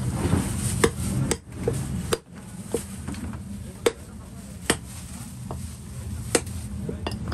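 Irregular sharp knocks of butchering work on a chopping block, about nine of them roughly a second apart, over a steady low hum of background noise.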